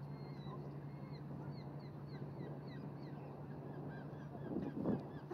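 A gull calling in a rapid series of short, clipped notes, about two a second, over the steady low hum of the cargo ship's diesel engine. A brief louder rumble comes near the end.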